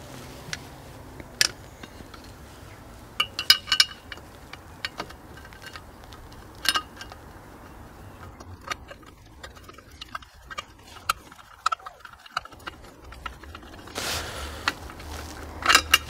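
Scattered light metallic clinks and taps of a screwdriver and bolt against the bike frame as a flat-headed bolt is screwed in to hold a battery tray, with a quick cluster of clinks about three to four seconds in. A rustling scrape comes near the end.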